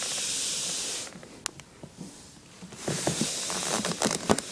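A person hissing breathily right into the microphone, twice: once for about the first second, then again from about three seconds in. A sharp click comes in the pause between the two.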